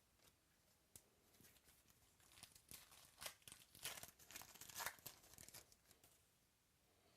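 A trading-card pack's foil wrapper being torn open and crinkled by hand, a quick run of rips and crackles that is loudest about four to five seconds in.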